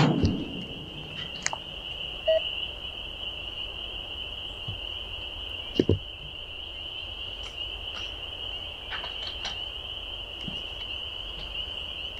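A steady high-pitched chorus of frogs. A few scattered clicks and two sharper knocks, one at the start and one about six seconds in, break through it.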